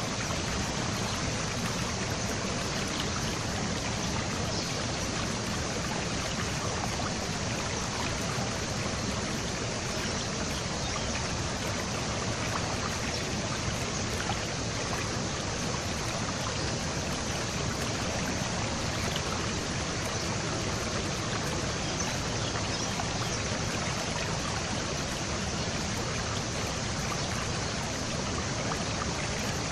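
Flowing water of a stream, a steady unbroken rushing.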